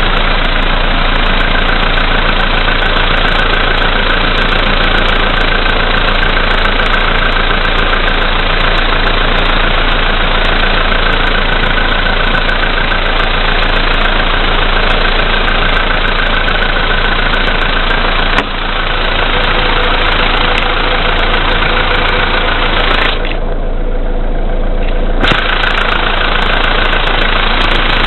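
Volkswagen Polo Sedan's CFNA 1.6-litre four-cylinder engine idling steadily after a cold start at −5 °C, with a knock running through the idle. Electrical load from the lights and heated rear window is being switched, which makes the knock stronger. A sharp click comes about two-thirds of the way through.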